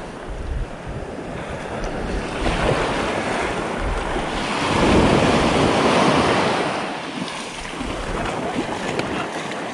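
Small surf waves breaking and washing up the beach, with wind buffeting the microphone. The wash swells to its loudest about five seconds in, then eases.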